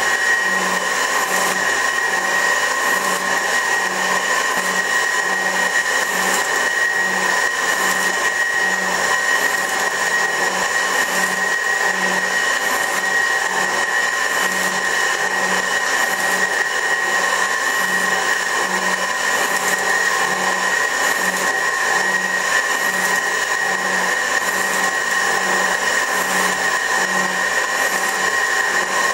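24-inch Värnamo metal shaper running steadily through its cutting strokes, a constant motor and gear whine with a regular low pulse about once a second.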